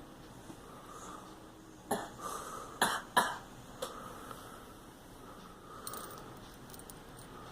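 A girl coughing: three sharp coughs about two to three seconds in, followed by a fainter fourth.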